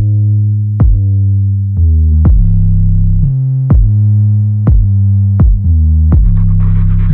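Electronic background music: a synthesizer bass and chords over a drum-machine beat, with a drum hit about once a second.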